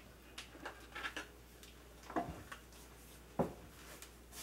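A plastic electric hand mixer and its cord being handled, not switched on: a few light clicks and rattles, then two sharper clicks about a second apart.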